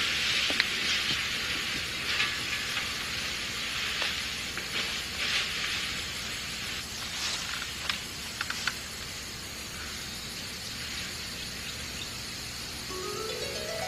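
Rustling of a full-skirted gown and bedclothes as a woman moves and settles into bed, with irregular crackles over a steady hiss. The rustling is strongest in the first half. Soft plucked-string music begins near the end.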